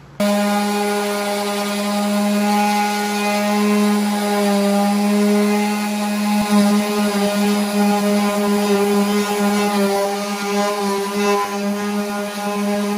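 Electric random orbital sander running steadily across a primed steel body panel: a loud, even motor hum with a steady pitch.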